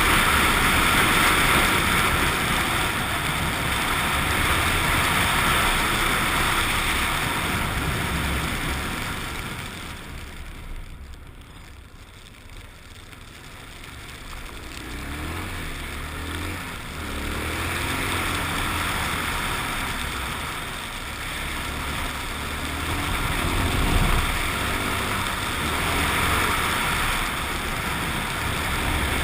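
Suzuki XF650 Freewind's single-cylinder engine running under way, with heavy wind rush. About ten seconds in it eases off and goes much quieter, then pulls away again with the revs rising and falling through the gears.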